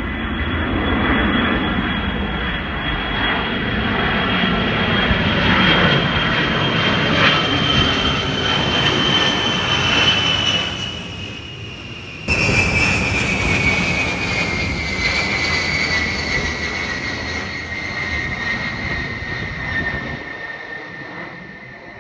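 Large military jet aircraft passing low overhead: a loud jet-engine roar with a high whine that slowly falls in pitch as it goes by. The sound breaks off abruptly about halfway through, comes back louder with the whine falling further, and fades near the end.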